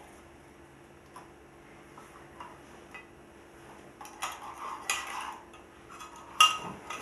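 Metal teaspoons stirring in red enamel mugs, clinking against the sides: a few light clinks at first, busier clinking about four seconds in, and one sharp clink near the end.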